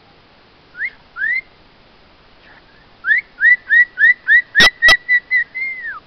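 Orange-winged amazon parrot whistling: two short rising whistles, then a quick run of about nine rising whistles, roughly four a second, ending in a longer held note that drops away. Two sharp clicks sound in the middle of the run.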